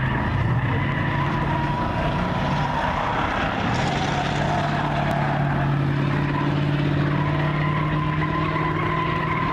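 Race pickup truck's engine running hard at fairly steady revs as it laps the track, with a steady high squeal from the tires through the turns.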